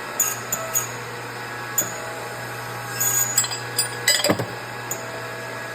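Steel supercharger-snout parts clinking and tapping over a steady machine hum, with a louder metallic clank about four seconds in, as the shaft, drive hub and bearing are separated.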